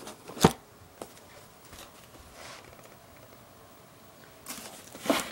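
Cardboard shipping box being handled in a struggle to open it: a sharp knock about half a second in and a lighter tap a second in, then scraping and rustling near the end.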